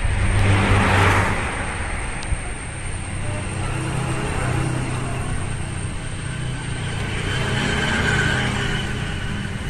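Electric swing gate's motors humming steadily as the two metal leaves swing shut, with road traffic behind and a louder vehicle pass about a second in.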